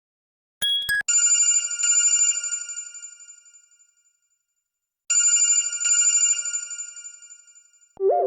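Android 8 Oreo stock ringtone: a trilling electronic bell chord that rings and fades away over about three seconds, sounding twice about four seconds apart. Just before the first ring, a couple of short clinks end the previous tone.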